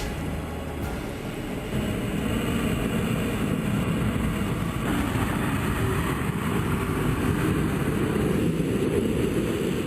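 A heavy vehicle running, with a steady low engine and road rumble that grows louder about two seconds in.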